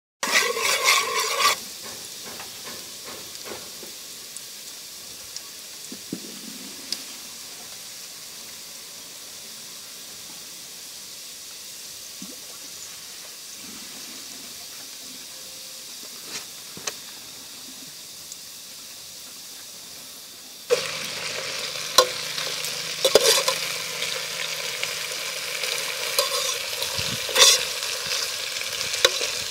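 Food frying in a pan with a steady sizzle, and scattered clicks of a utensil against the pan. About two-thirds of the way through it turns louder, with brisk stirring and frequent clanks of the utensil on the pan.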